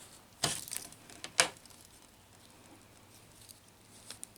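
Swiss Army knife being handled and checked after a scale repair: two sharp clicks, the second the louder, then a few faint ticks near the end.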